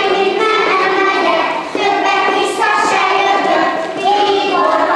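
A group of young children singing a song together in unison, a steady tune with long held notes.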